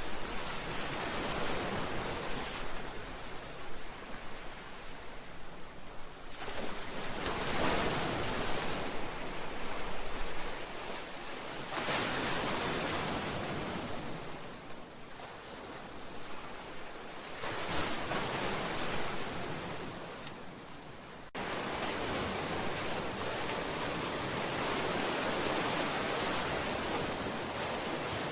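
Sea waves breaking and washing against a seawall and breakwater: a steady rushing wash that swells every few seconds, then shifts abruptly to a steadier, fuller rush about three quarters of the way through.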